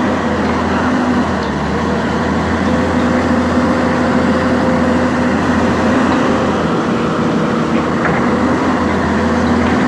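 Diesel engine of a Hyundai 290 long-reach excavator running at a steady pitch.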